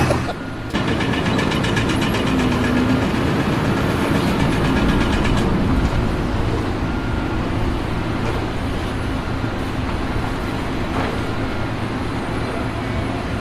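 An engine running steadily, with fine rapid ticking over it for the first few seconds.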